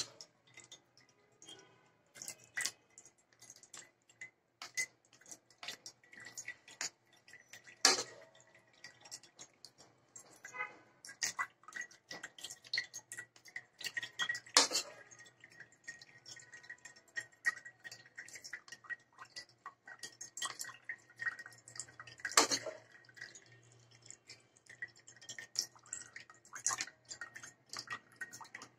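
A steel spoon pressing and scraping a wet mixture through a plastic strainer, with irregular clicks and taps of the spoon against the strainer and liquid dripping onto a steel plate below. A few louder knocks stand out, about eight, fifteen and twenty-two seconds in.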